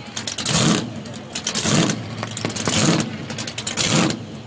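A burnout car's engine being revved hard in repeated throttle blips, about one a second, four times, each rev swelling and falling back.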